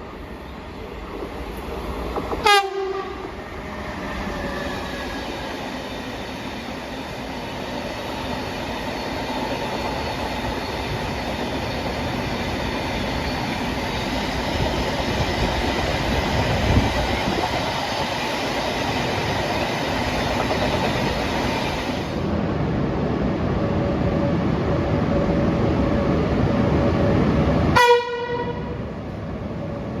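Swedish train horn giving two short blasts, one a couple of seconds in and another near the end. Between them the train's running noise on the rails grows steadily louder.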